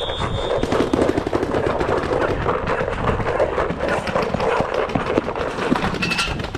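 Many paintball markers firing across the field at once, a dense, continuous crackle of rapid shots. A short high tone sounds right at the start.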